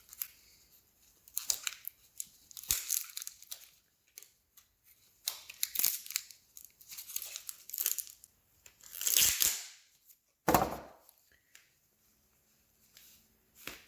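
Crinkling and tearing of packaging as a tire plug is taken out of its wrapper, in irregular bursts with short pauses and a couple of soft knocks.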